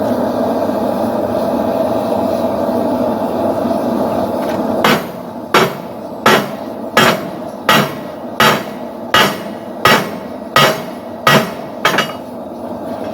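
Blacksmith's hammer striking hot steel on an anvil, eleven evenly paced blows about one every 0.7 seconds, starting about five seconds in. A steady rushing noise runs underneath and is all there is before the hammering starts.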